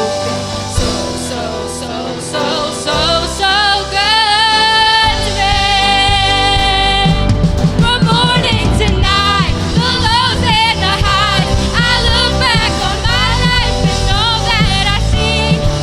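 Gospel song with sung wavering held notes and runs over a backing band; the bass of the backing grows much heavier about five seconds in.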